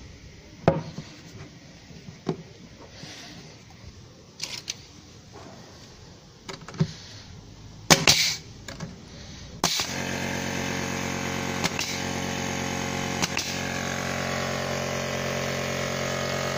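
Bostitch 16-gauge nailer firing pins into a timber door rail: about six sharp snaps spread over roughly ten seconds, the loudest a little past halfway. About ten seconds in, a steady hum made of several even tones sets in suddenly and holds.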